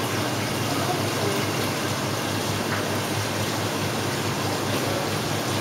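Steady rush of water circulating through an aquarium's filtration and aeration, with a faint low hum under it.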